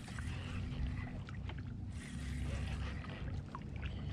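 Water sloshing and trickling against a kayak hull at sea, with a low wind rumble on the microphone and a few faint clicks.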